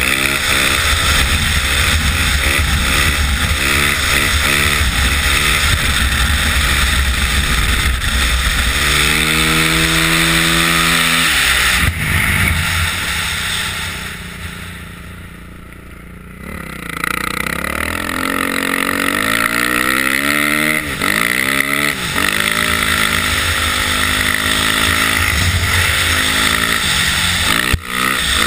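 Off-road motorcycle engine revving hard and climbing through the gears, pitch rising and resetting about once a second. About halfway the throttle is closed and the engine falls away quietly for a few seconds, then it picks up and pulls through the gears again.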